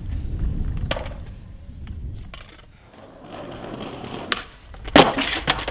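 Skateboard wheels rolling over paving with a few light clacks, then one loud smack about five seconds in as the skater comes down from a jump over a set of steps and slams.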